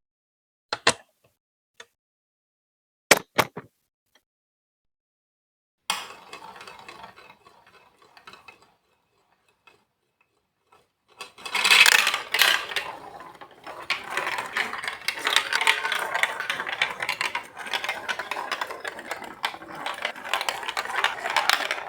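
A few sharp plastic clicks. Then a marble rolling and rattling along a Lego Duplo block track. About halfway in, many marbles clatter together down the plastic run in a dense, continuous rattle.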